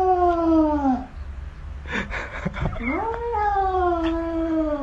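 Cat yowling, a defensive warning at what it takes for a rival cat in the mirror: two long, drawn-out yowls that rise and then slowly fall in pitch, with a short hiss between them about two seconds in.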